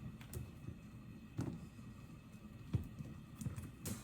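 Quiet kitchen background with a few soft, scattered knocks and clicks of cookware being handled.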